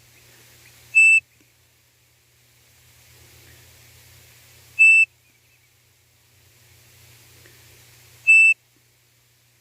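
Hand-blown bird-call whistle (pio) sounding the codorniz call: three short, loud, steady-pitched whistle notes, a few seconds apart, used to lure the bird in.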